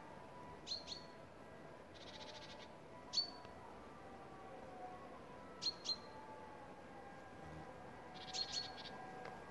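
A small songbird calling: short, sharp chirps, several in quick pairs, with a brief buzzy trill about two seconds in.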